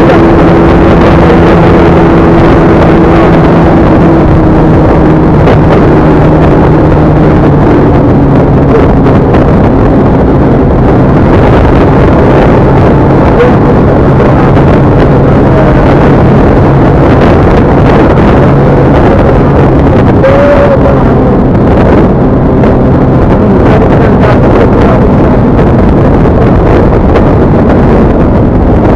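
Vehicle engine running at a steady speed, buried in loud rushing wind and road noise on the microphone; the engine note drops slightly about eight seconds in and then holds.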